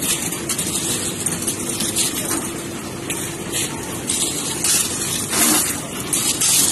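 Concrete mixer-pump machine running with a steady, loud mechanical hum. Over it come repeated gritty scrapes and rattles of shovelled gravel and aggregate, several every second or two.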